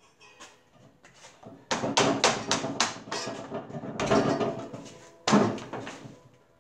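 Clay being wedged by hand on a wedging board: a quick run of dull thuds and slaps as the lump is pushed and rocked, starting a couple of seconds in, with louder thumps about four and five seconds in.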